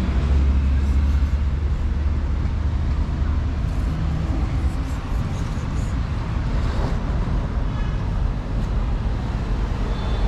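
Steady low rumble of road traffic, heaviest in the first few seconds.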